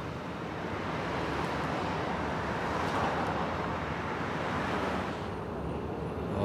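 Steady city-street noise with a low rumble, swelling slightly about three seconds in; the higher hiss thins out about five seconds in.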